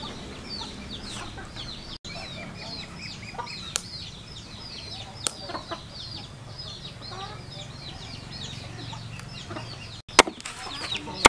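Chicks peeping without a break: many short, high, falling peeps, several a second. A few sharp knocks sound over them, the loudest about ten seconds in: a cleaver striking a wooden cutting board.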